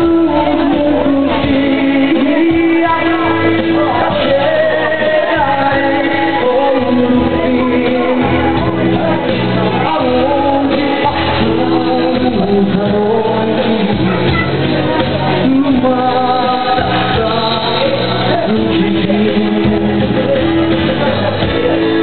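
Live amplified music: a man singing into a microphone over backing music with a steady bass line.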